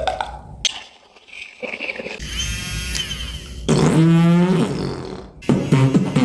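Beatboxer's mouth sound effects: a hissing, buzzy stretch with sliding whistle-like streaks, then a loud voiced sweep falling in pitch, and about five and a half seconds in a rhythmic pulsing vocal beat begins.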